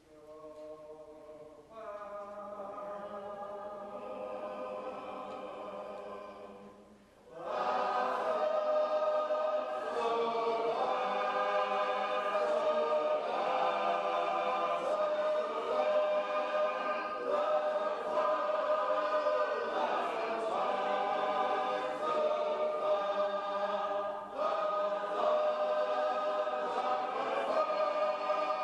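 Unaccompanied shape-note group singing in several parts. It begins with a few voices holding a quieter chord, then the whole group comes in loudly about seven seconds in and sings on in full harmony.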